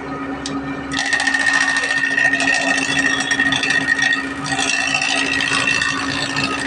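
Power tool running on wood: a steady hum throughout, joined about a second in by a loud, dense rattling cutting noise with a high whine.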